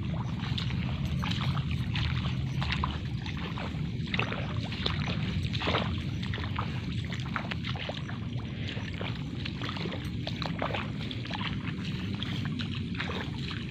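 Water sloshing and splashing in short, irregular strokes over a steady low rumble, as when moving through a flooded rice paddy.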